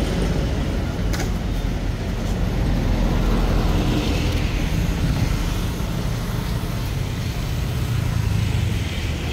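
Steady low rumble of road traffic, with one faint click about a second in.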